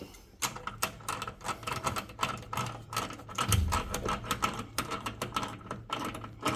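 Quick, uneven metallic clicking and rattling from the earthquake strap hardware as the strap is worked tight around the water heater, several clicks a second.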